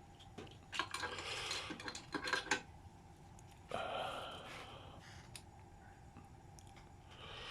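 Kitchen handling noises: light clinks and rustling of cookware and utensils, then a short rushing noise that starts suddenly almost four seconds in and fades away.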